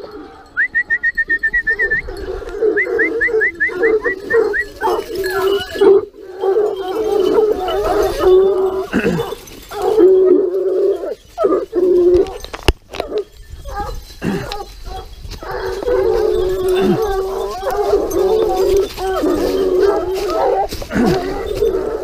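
Pack of Gascon Saintongeois hounds giving tongue together on a wild boar's trail: a continuous overlapping chorus of baying and howling. In the first few seconds, two quick runs of high, rapid pips sound over the pack.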